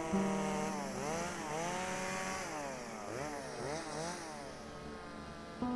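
Gas chainsaw engine revving and easing off over and over as it carves wood, its pitch rising and falling repeatedly.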